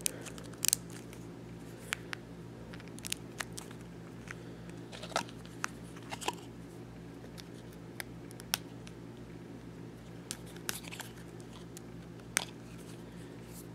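Scattered plastic clicks and taps from a Sharp GZ200 mobile phone being handled and its back cover taken off to reach the battery, over a faint steady low hum.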